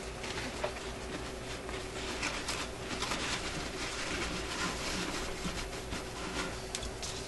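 Paper towel rustling and rubbing against a record changer's metal mechanism, with scattered small clicks, as sprayed WD-40 is wiped off the parts.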